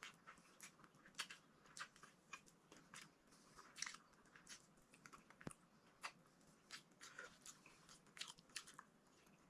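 A person chewing a mouthful of okra and eggplant, with faint, short, wet mouth clicks about every half second.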